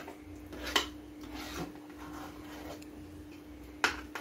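Metal spoon scraping and stirring a thick, sticky dodal paste of rice flour, jaggery and coconut milk around a pan, kept moving so it does not catch on the bottom as it thickens. Two sharp clicks of the spoon against the pan come about a second in and near the end.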